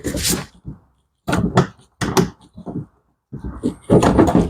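Irregular knocks and plastic clatter in several short bursts, from handling the mud flap and fender liner while its screws are taken out.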